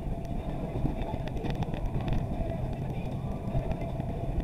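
Off-road buggy running along a trail: a steady engine and drivetrain rumble, with scattered clicks and rattles about a second or two in.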